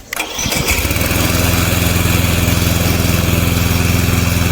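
The Loncin 224cc single-cylinder four-stroke petrol engine of a remote-control mower starting on its electric starter, catching within about a second and then running steadily.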